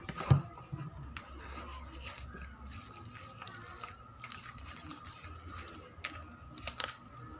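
Homemade glue-and-detergent slime being mixed and kneaded, giving scattered small sticky clicks and pops, with one louder thump just after the start.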